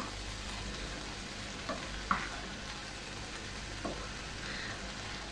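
Diced ratatouille vegetables sizzling in a frying pan as a wooden spatula stirs them, with a few light knocks of the spatula against the pan, about two seconds in and again near four seconds.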